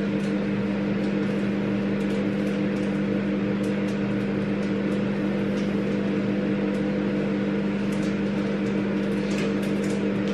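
Microwave oven running with a steady hum while heating food. Faint rustling of a sweatshirt being pulled on sits on top.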